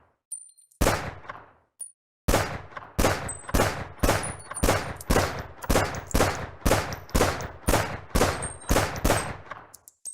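Glock 17 9mm pistol firing. One shot comes about a second in, then a few light clicks, then a steady string of about fifteen shots at roughly two a second, each with a short echoing tail.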